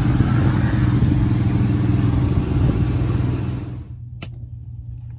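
Motorcycle engines running with some revving, loud and steady, cutting off abruptly about four seconds in. A low hum remains, and there is one sharp click shortly after.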